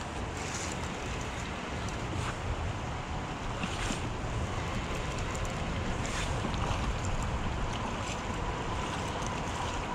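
Shallow creek water running steadily over riffles, with wind buffeting the microphone. A few brief, sharp sounds stand out over the rush.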